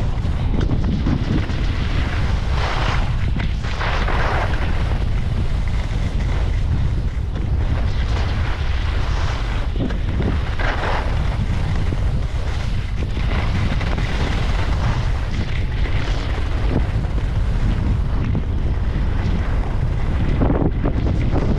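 Wind buffeting a skier's camera microphone during a downhill run: a steady low rumble. The hiss and scrape of skis on packed snow swells every few seconds with the turns.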